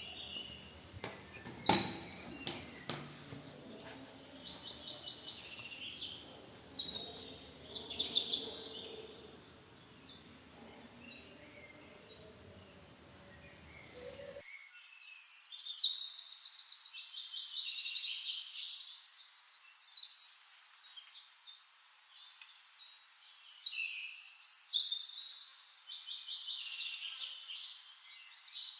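Birds chirping and trilling in repeated bursts of song, with a sharp knock about two seconds in.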